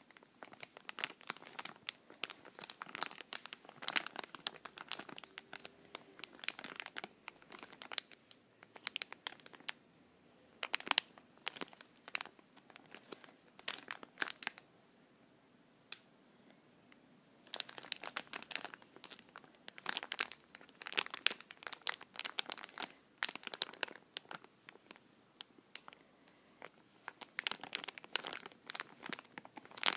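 Red soft-plastic pack of Mr Sheen surface wipes being crinkled and squeezed in the hands: dense runs of sharp plastic crackling, broken by a few short pauses.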